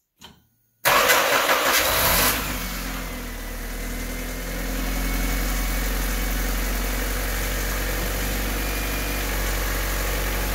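Honda D16Y8 1.6-litre four-cylinder engine with a coil-on-plug ignition kit starting up: it fires suddenly about a second in, runs unevenly for a moment, then settles into a steady idle. The owner finds it slow to fire up with the coil-on-plug kit.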